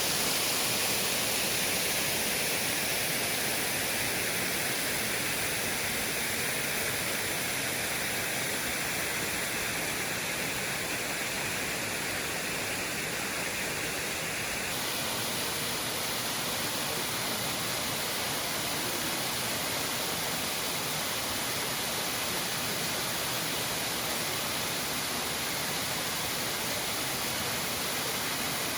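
Bigăr Waterfall: water pouring and splashing in a steady rushing noise. Its upper tone shifts slightly about halfway through.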